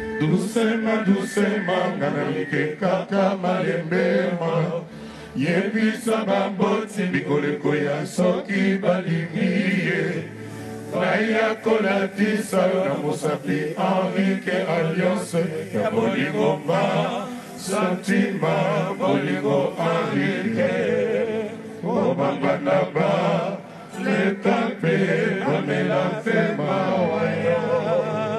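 Live band music: male voices singing together in a chant-like refrain over electric guitar and steady drum hits, with a few short drops in loudness.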